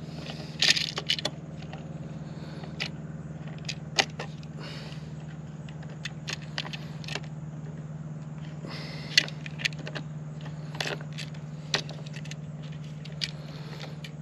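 Light clicks, rattles and scrapes of a GFCI receptacle and its wires being handled while the wires are fitted to its terminals, with a sharper click about nine seconds in. A steady low hum runs underneath.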